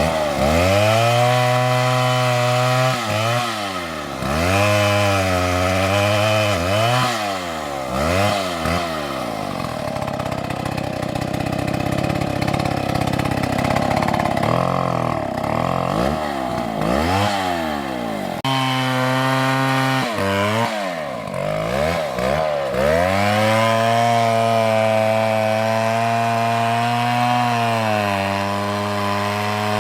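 Chainsaw running at high revs and cutting wood, its engine pitch dipping and climbing back again and again, then holding fairly steady for the last several seconds.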